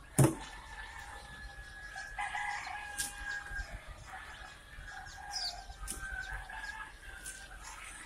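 A crate of day-old chicks cheeping together in a steady, overlapping high chorus. One sharp plastic knock from the stacked chick baskets just after the start is the loudest sound, with small clicks of handling scattered through.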